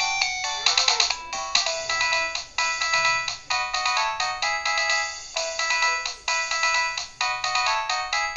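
16-voice polyphonic MIDI ringtone from a 2003 Modottel WTE-300 mobile phone, playing a busy melody of short, quickly decaying notes in chords. It sounds thin, with almost no bass.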